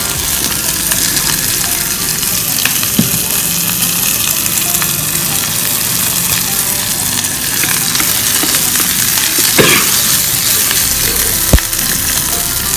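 Shallots, garlic and chilies sizzling steadily in hot oil in a small electric pot, with a few sharp knocks, the loudest near the end.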